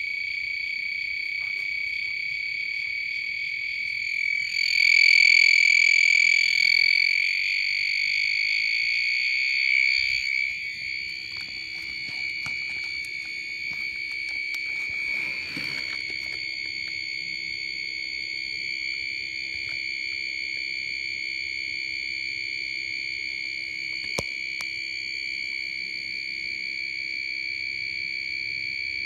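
Small piezo beeper driven by a 555-timer oscillator circuit, giving a continuous high-pitched electronic tone. It gets louder about four seconds in, then drops back to a steady level after about ten seconds.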